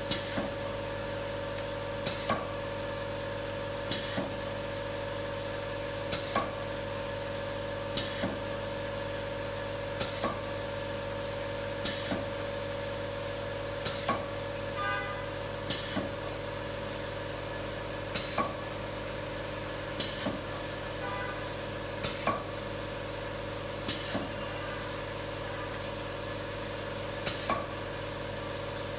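Semi-automatic coffee valve applicator machine running: a steady hum from its vibration-plate valve feeder, with a sharp mechanical click about every two seconds, some in quick pairs, as the applicator cycles.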